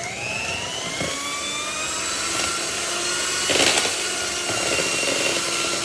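Electric hand mixer beating cake batter, its motor whine rising in pitch as it spins up and then running steadily. There is a brief louder rattle about three and a half seconds in.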